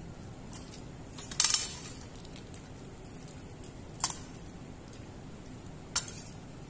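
Tableware clinking a few times as food is handled at the table: a short clatter about one and a half seconds in, then single sharp clinks around four and six seconds in.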